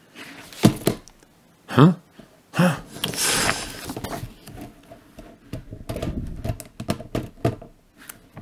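Spiral-bound notebook being handled: its card cover flipped open and folded back with a rustle of paper, a few knocks on the wooden desk, then a quick run of small ticks and clicks as the wire spiral and pages are fingered.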